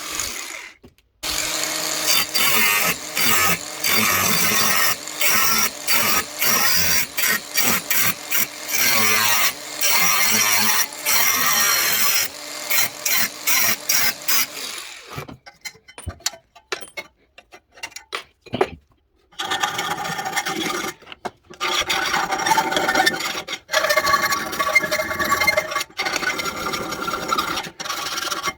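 Workshop tool noise: harsh, noisy working sounds that start and stop abruptly in short spliced stretches, with a pause of a few seconds in the middle.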